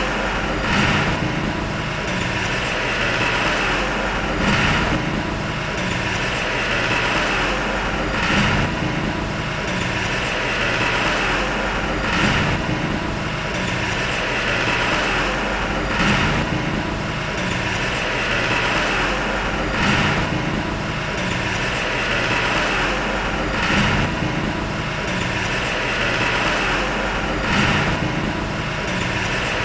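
Heavy diesel earthmoving machinery running under load, with a regular surge and clank about every four seconds.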